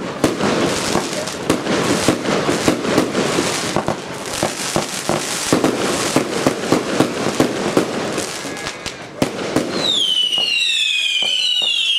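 Compound fireworks cake firing: a dense run of bangs and crackling star bursts, then from about ten seconds in several overlapping whistles that fall in pitch.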